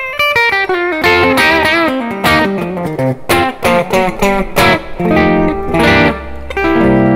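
Tokai AST-52 Goldstar Sound electric guitar on its bridge humbucker, played through a Yamaha THR10 amp on a crunch setting: a run of quickly picked single notes and short riffs, ending on a held chord.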